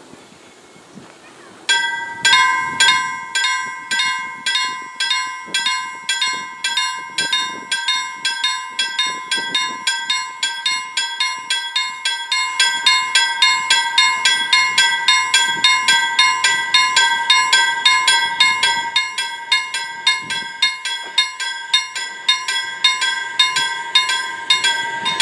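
Level crossing warning bell starting about two seconds in and ringing in rapid, evenly spaced strokes, warning of an approaching train.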